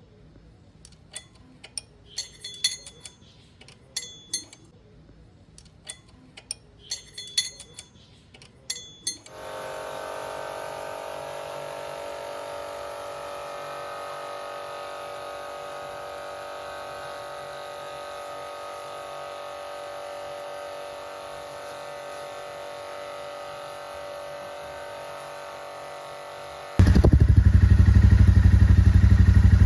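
Metal tool clicks and clinks as the gear lever is bolted back on, followed by a steady humming tone. About 27 seconds in, the Royal Enfield Interceptor 650's parallel-twin engine comes in suddenly and loudly and keeps running.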